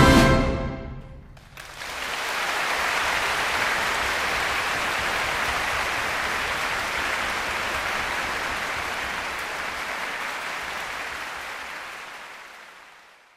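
A music track dies away in the first second, then applause starts about a second and a half in, steady and dense, and fades out near the end.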